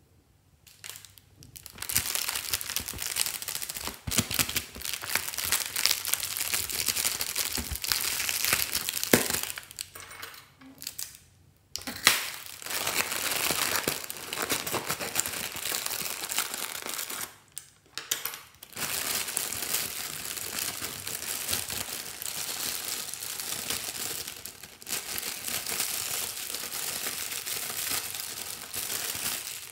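Foil balloon crinkling as hands crumple it and cut into it with scissors, in long stretches of crackle broken by a couple of short pauses, with one sharp snap about twelve seconds in.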